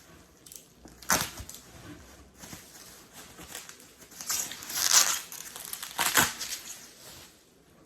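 Bubble wrap being pulled off and crumpled by hand: irregular plastic crinkling and rustling, with sharp crackles about a second in and again around five and six seconds.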